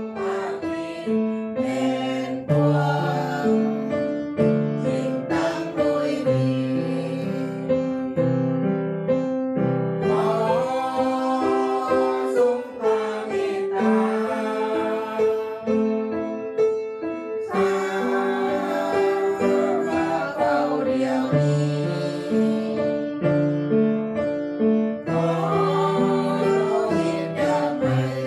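Live worship song: women singing a hymn in Lao to electronic keyboard accompaniment, with sustained chords over a moving bass line.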